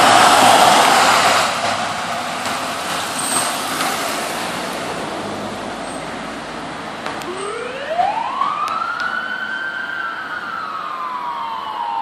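Ambulance driving past close by with a loud rush of engine and tyres that fades as it moves away. About seven seconds in, a siren starts up with a wail that rises, falls slowly, and rises again near the end.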